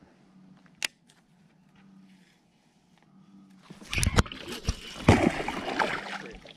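A single sharp click about a second in. Then, after a quiet stretch, a hooked bass splashes and thrashes hard at the water surface from about four seconds in, right after a hard hook set.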